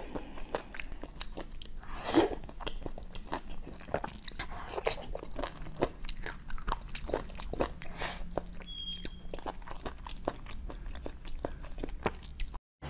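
Close-miked eating: irregular biting, crunching and chewing with wet mouth clicks, a few louder bites standing out. The sound breaks off briefly near the end.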